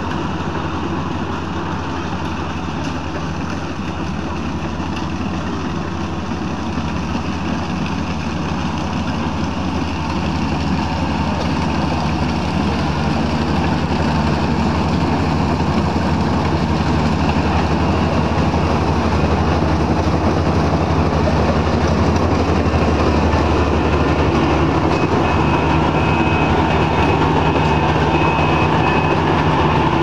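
Kubota DC-35 rice combine harvester running steadily as it cuts and threshes rice, its diesel engine and machinery making a continuous hum. It grows louder about halfway through as the machine comes close.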